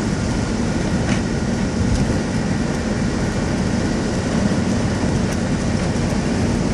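Car driving on a rutted, broken asphalt road, heard from inside the cabin: steady rumble of tyres and engine.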